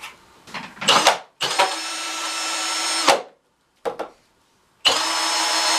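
Milwaukee M18 Fuel cordless hammer drill spinning an 8-inch K-Drill ice auger free in the air, in its low gear: a brief knock about a second in, then a steady motor whine for about a second and a half that winds down and stops. A short click follows, then the drill starts up again with the same steady whine near the end.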